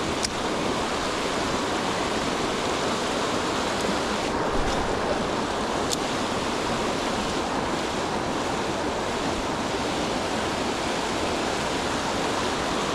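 Swift river water rushing over rocks in a riffle, a steady hiss.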